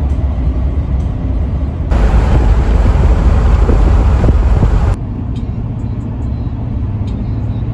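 Steady road and engine noise inside the cab of a moving full-size camper van, in three stretches that change abruptly about two and five seconds in. The middle stretch is louder and hissier.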